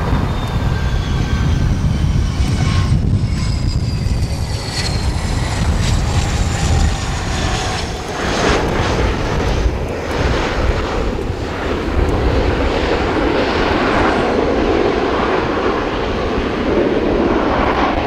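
Business jet arriving: its turbine whine, several high tones, slides slowly down in pitch, then gives way to a broad rushing jet noise from about eight seconds in, over a steady low rumble.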